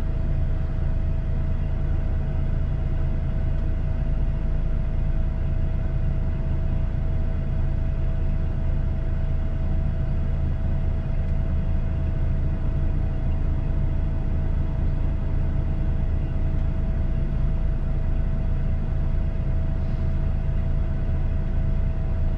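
Truck's diesel engine idling steadily, a constant low drone with a thin steady tone above it.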